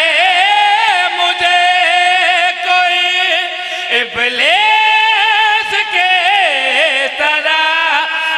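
A man chanting devotional verse in a drawn-out, wavering melody, holding and bending long notes, with a short break about halfway through.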